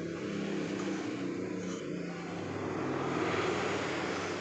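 A motor vehicle engine running steadily with a low hum that shifts in pitch, swelling louder about three seconds in.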